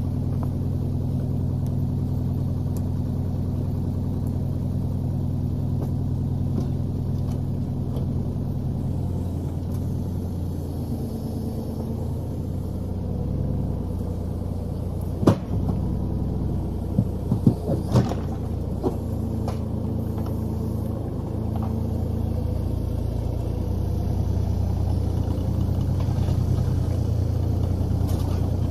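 Mini excavator's diesel engine running steadily under an operator. About halfway through there are a few sharp knocks.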